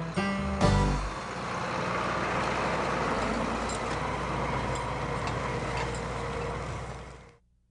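Tractor engine running steadily with a noisy hiss, fading out near the end; the last notes of a country song end about a second in.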